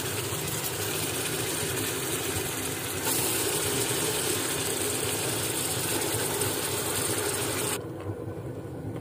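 Marinated beef frying in hot oil with onions in a pressure cooker pot: a steady sizzle over a low rumble. It grows louder and brighter about three seconds in, and the high hiss drops off abruptly near the end.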